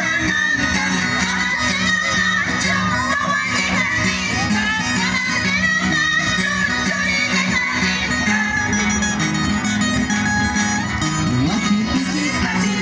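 Andean pumpin music: strummed guitars playing a steady accompaniment under a wavering high sung melody.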